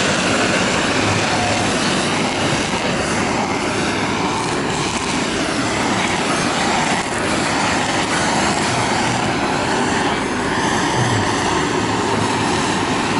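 Handheld butane kitchen blowtorch burning with a steady hiss as its flame sears salmon nigiri.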